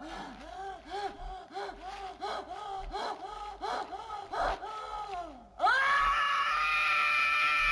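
Scrat, the cartoon sabre-toothed squirrel, blubbering in quick sobbing cries, about three a second, each rising and falling in pitch. Near the end it breaks abruptly into one loud, long, high scream held at a steady pitch.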